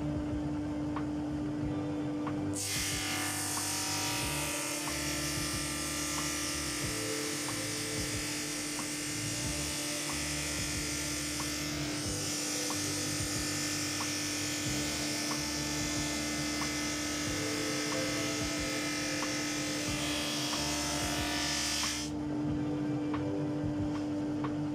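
Drum sander running with a steady hum while a plywood panel is fed under its abrasive drum on the conveyor. A loud, even sanding hiss starts a couple of seconds in, as the panel reaches the drum, and cuts off sharply near the end as the panel clears it.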